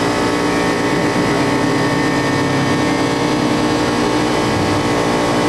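A steady, loud engine hum that holds an even pitch and level throughout.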